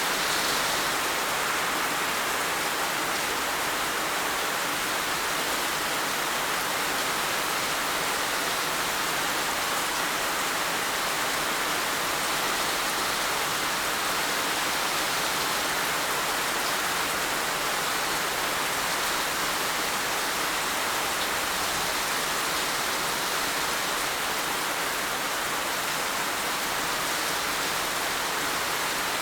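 Heavy rain falling in a steady, even downpour, a constant dense hiss with no distinct drops or thunder.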